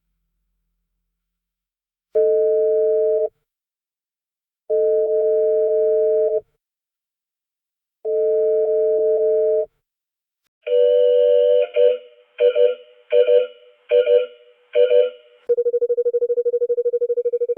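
Mobile phone vibrating in a series of buzz patterns. First come three separate buzzes of about a second and a half each. Then a longer buzz is followed by four short ones, and a continuous fast-pulsing buzz runs near the end.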